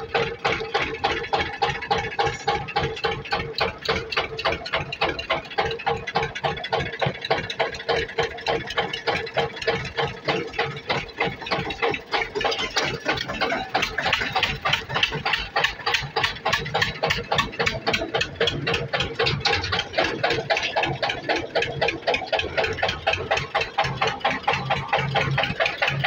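Farm tractor's diesel engine running under way, heard close from the driver's seat as a rapid, even exhaust beat.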